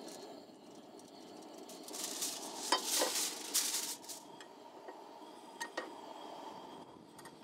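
Nonstick frying pan handled on a portable camp stove's metal grate, with light knocks and clicks and a loud hiss about two seconds in that lasts around two seconds.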